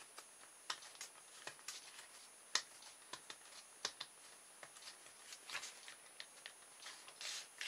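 Irregular light clicks and taps as the plastic parts and metal shaft of a small electric motor kit are handled, with a sharper click about two and a half seconds in and another about four seconds in.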